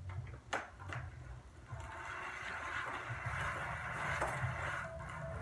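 BMX bike pedalled in place: a couple of sharp clicks in the first second, then a steady whirring hiss of the chain and spinning wheel from about two seconds in.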